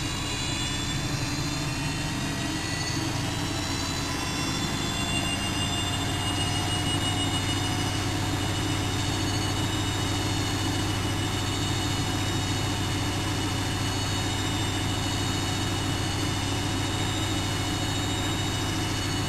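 Bosch WFM3010 front-loading washing machine spinning its drum, with a steady low hum and a motor whine that rises in pitch over the first several seconds as the drum speeds up, then holds steady.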